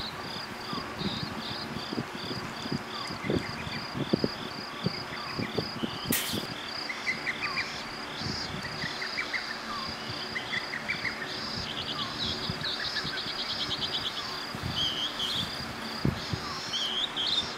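Night insects chirping: one high chirp repeats evenly about twice a second while other chirps and trills come and go. Under them is the steady hiss of an electric fan, with a few soft knocks and a sharp click about six seconds in.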